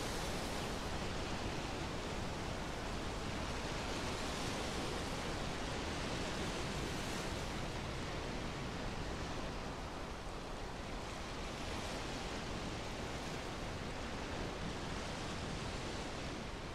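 Sea surf breaking on a sandy beach: a steady rushing wash with slow, gentle swells.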